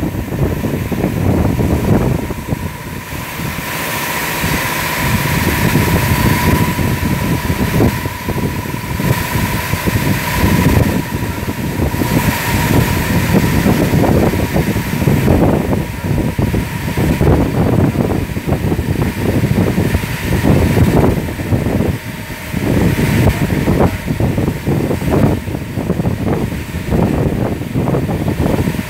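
W360 touchless car wash spraying a car with high-pressure water and foam: a continuous hissing rush of spray that swells and dips as the arm moves around the car, over a steady machine whine from the wash equipment.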